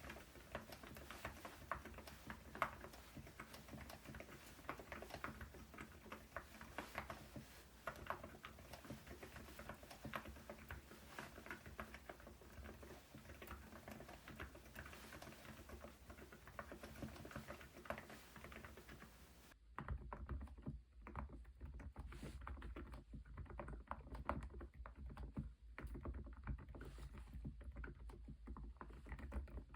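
Typing on a Cidoo Nebula mechanical keyboard fitted with Epomaker Nude Rosa silent switches and XDA keycaps: a continuous stream of soft, muted keystrokes. About two-thirds of the way through, the sound turns duller and a low hum comes up under the typing.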